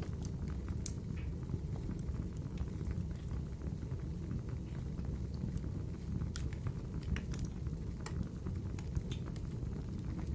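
Wood fire burning in a fireplace: a steady low rumble of flames with scattered sharp crackles and pops.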